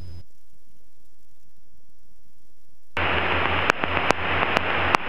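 Aircraft radio audio heard through the intercom: a quiet gap of about three seconds between loops of an automated weather broadcast, then a steady hiss of radio static with scattered clicks and a low hum as the broadcast frequency comes back.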